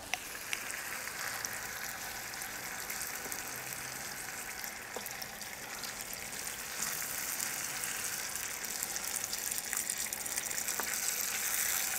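Passata and browned mince sizzling in a hot cast-iron skillet over glowing charcoal while being stirred with a wooden spoon, with a few faint clicks. The sizzle grows a little louder about seven seconds in.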